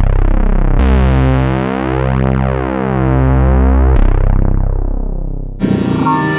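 Novation MiniNova synthesizer playing sustained notes with a heavy bass and a slowly shifting, phasing tone, changing sound about four seconds in. Near the end it switches to a brighter, keyboard-like patch.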